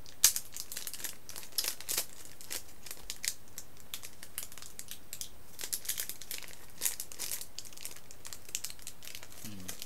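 Packaging of an invisibleShield screen protector crinkling and rustling in irregular crackles as it is handled and opened by hand.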